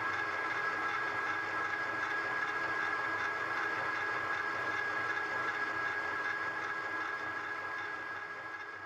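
Matsson Zetterlund VF600 milling machine running steadily with a face mill on a cast iron part, a constant hum with a clear high whine. It fades out over the last couple of seconds.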